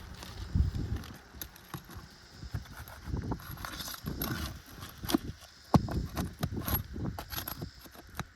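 Hand-tool work on an asphalt shingle roof: irregular knocks, clicks and short scrapes as shingles are pried up and their nails worked loose.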